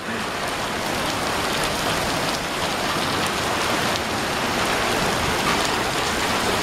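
Heavy rain falling steadily, an even dense hiss of drops on the ground and surfaces.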